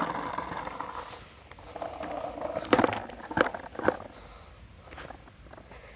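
Skateboard wheels rolling, then three sharp clacks of the board hitting the ground a little under three to about four seconds in.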